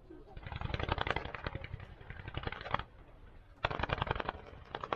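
Firecrackers going off in rapid crackling strings of many pops, in two runs with a short lull between them.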